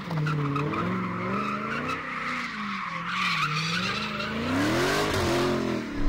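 Dodge Charger Hellcat's supercharged V8 revving up and down, the revs climbing near the end, while the spinning rear tires squeal steadily in a smoky drift.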